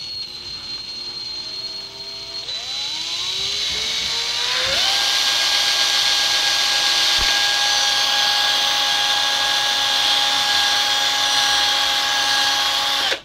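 Electric drill with a small bit drilling a hole in a battery adapter casing. The motor whine climbs in pitch over the first few seconds, holds steady at full speed, then cuts off suddenly at the end.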